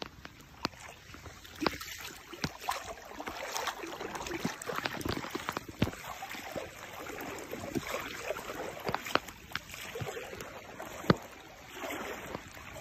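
Floodwater flowing and splashing through a street, a steady rushing noise dotted with scattered sharp taps and knocks, the loudest about eleven seconds in.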